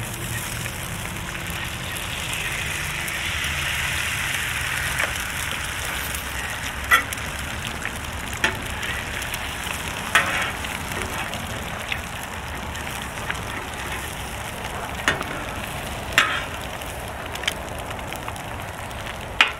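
Eggs and bacon frying on a hot Blackstone steel griddle, a steady sizzle that grows louder a couple of seconds in as the freshly cracked egg spreads on the steel. About half a dozen sharp clicks of a metal spatula on the griddle break in now and then.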